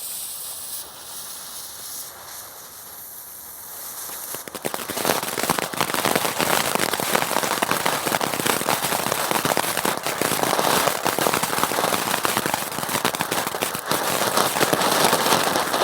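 Crackling firework fountain burning: a quieter hiss at first, then from about four seconds in a dense, steady crackle of many tiny pops.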